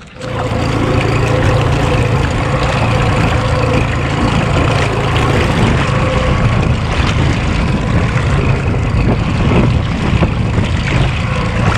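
Outboard motor of a small aluminium fishing boat running steadily under way, a low drone with water and wind noise over it; it comes in suddenly at the start.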